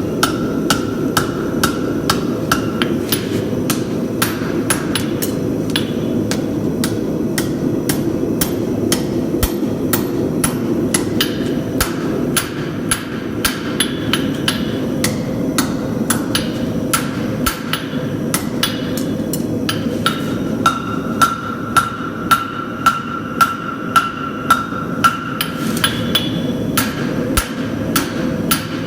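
Blacksmith's hammer striking hot bar stock on the anvil horn in a steady run of blows, about two a second, many leaving a short metallic ring, over a steady low rushing noise.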